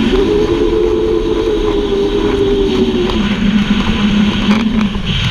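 Can-Am Maverick X3 side-by-side's three-cylinder engine running under load across dirt, its pitch dropping about three seconds in as it eases off. The machine is brand new and is being driven fairly gently while it breaks in.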